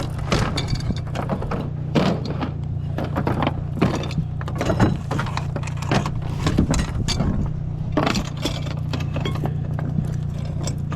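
A motor vehicle's engine running steadily with a low hum, while loose gear rattles and clatters irregularly over it.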